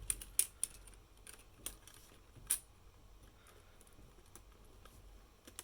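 Hard plastic LEGO Technic pieces being handled and fitted together: a handful of sharp, irregular clicks in the first two and a half seconds, then only faint small ticks.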